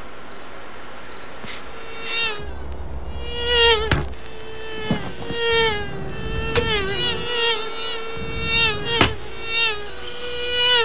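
A mosquito's high buzzing whine that swells and dips in pitch several times as it flies close past.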